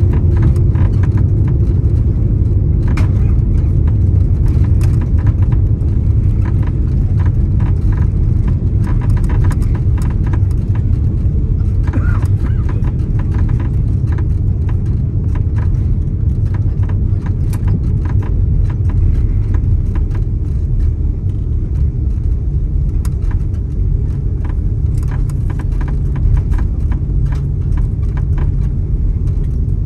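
Steady low rumble inside the cabin of an Airbus A330-300 rolling on the ground after landing, with many small rattles and clicks from the cabin fittings.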